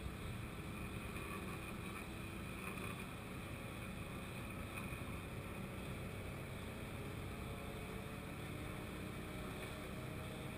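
Steady noise aboard a small sailboat under way: wind and water moving past the hull, with a low engine drone underneath.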